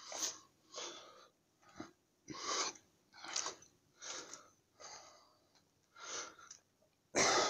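A man breathing hard from climbing stone steps: a run of short, noisy breaths about once a second, with the loudest breath near the end.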